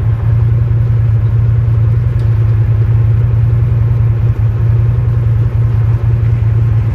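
Off-road side-by-side's engine running steadily at low speed, heard from on board as a loud, even low drone with a fast regular pulse.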